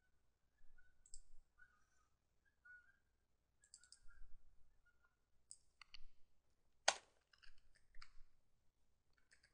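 Near silence with a scattering of faint, short computer clicks from a mouse and keyboard, the sharpest about seven seconds in.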